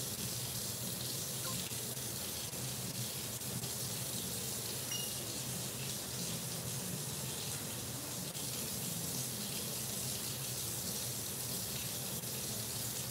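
Steady, even rushing noise in a kitchen, with no distinct strokes or changes.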